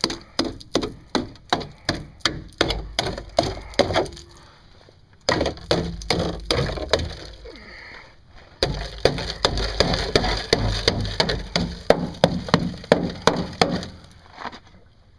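Rapid hammer blows on the rusted steel rocker panel of a 2001 Chevy Silverado pickup, about three strikes a second, broken by two short pauses.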